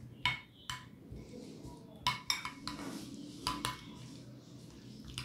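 A metal spoon stirring chopped capsicum and onion into mayonnaise in a ceramic bowl, clinking sharply against the bowl about six times, some in quick pairs, with the soft sound of the mix being turned between the clinks.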